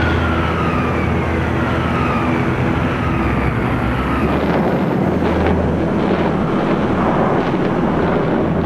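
Steady drone of heavy bomber engines with a long, slowly falling whistle over the first four seconds or so.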